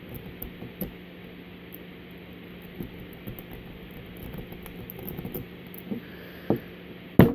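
A rake pick scratching and ticking against the pins of a Master Lock Magnum M187 four-pin padlock under tension, in scattered small clicks, with the lock still failing to open. A loud sharp knock comes near the end.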